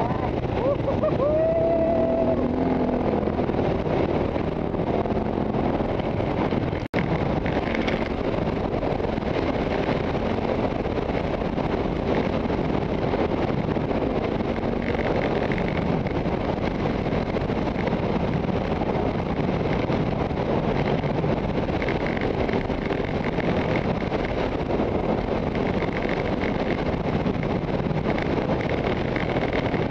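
A KTM trail bike's engine running under way on a dirt track, mixed with wind buffeting the helmet-mounted camera's microphone. The sound is steady, with a momentary gap about seven seconds in.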